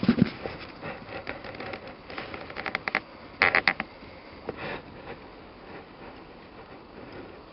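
Snow crunching and scraping underfoot in quick clusters of short crackles, loudest a little after three seconds in, with a dull thump at the very start.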